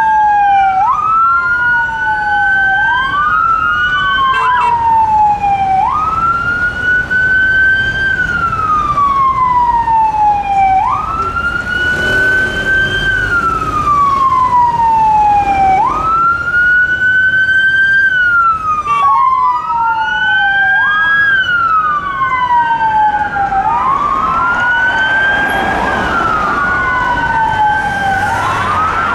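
Police sirens on unmarked Mitsubishi Shogun and Vauxhall Vivaro vehicles on an emergency run, sounding a slow wail. About every five seconds the pitch jumps up, climbs to its peak, then falls slowly. A second wail overlaps out of step at times, over traffic noise.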